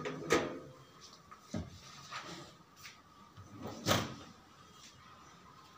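Stainless-steel kitchen drawers and a wire pull-out basket sliding on their runners and knocking shut. There is a sharp knock just after the start, a duller thud about a second and a half in, a few light clicks, and the loudest knock about four seconds in.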